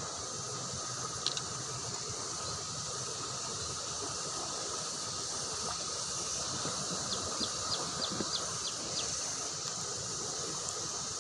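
Fast-flowing river water rushing steadily, with a steady insect drone over it and a quick run of short high ticks about seven seconds in.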